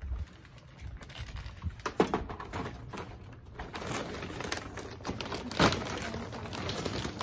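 Rustling and handling of reusable fabric shopping bags and the items inside them, with scattered clicks and two sharper knocks, one about two seconds in and a louder one later.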